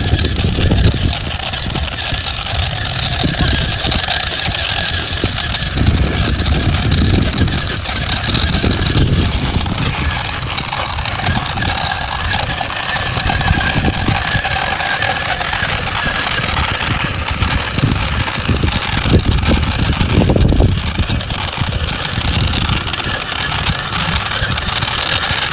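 Radio-controlled model truck running: a steady engine-like sound with an uneven rumbling low end.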